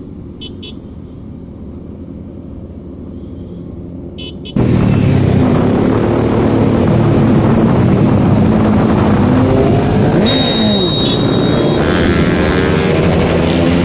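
Motorcycle engines on a group ride with superbikes. About four and a half seconds in the sound jumps abruptly to loud engine and exhaust noise, with revs rising and falling. There are a couple of short high beeps before the jump and a high steady whine later on.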